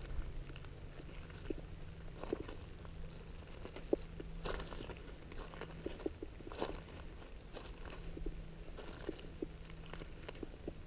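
Fishing rod and reel being worked during a lure retrieve: faint, scattered clicks and crunches at irregular times, with a sharper tick about four seconds in, over a faint low hum.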